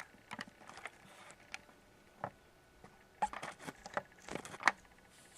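Hands handling a laptop and the things around it: a scattered run of light clicks and taps, busier in the second half, with one sharper click near the end.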